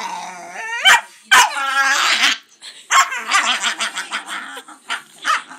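Puppy vocalizing: a rising howl that ends in a sharp bark, another sharp bark breaking into a longer wavering whine, then a quick run of short yips.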